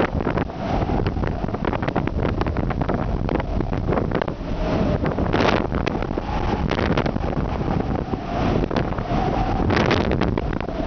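Strong wind buffeting the microphone aboard a cargo ship in heavy seas: a steady low rumble crackling with gusts, surging louder about halfway through and again near the end.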